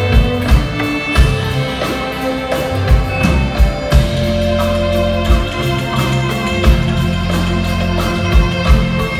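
Live band music with no singing: an instrumental passage with held bass notes, sustained higher tones and low drum hits.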